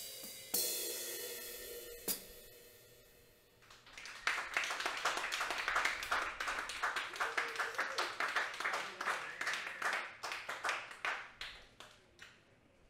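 Free-improvised drum-kit percussion: two cymbal strikes left to ring out in the first couple of seconds, then a fast, dense run of light cymbal and drum taps that thins out and fades near the end.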